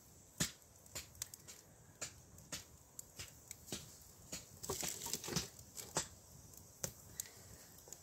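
Wood fire crackling and snapping in a homemade mud-and-stone stove, with irregular sharp pops, and a denser burst of crackling and rustling about five seconds in as a log is pushed into the firebox.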